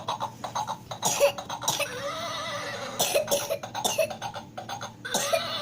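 A small child coughing in short repeated bursts, mixed with high wavering squeals of excitement: a fit of happy coughing.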